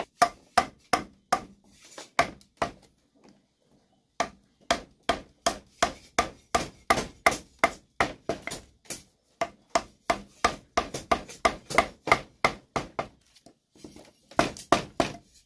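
A tool striking wood over and over, about three blows a second, in runs broken by two short pauses.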